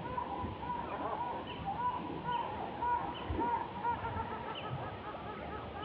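A troop of Japanese macaques calling: many short, arched, coo-like calls overlap in a continuous chorus, with a few higher chirps among them.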